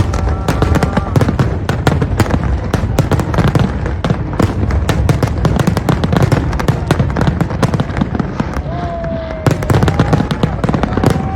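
Fireworks display going off in a rapid, unbroken stream of sharp cracks and bangs over a heavy low rumble of booms, with a few faint whistling tones.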